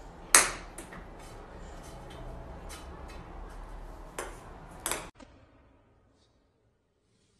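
A handful of light, sharp clinking taps of small hard objects over faint room noise, the first about half a second in the loudest; the sound stops abruptly about five seconds in.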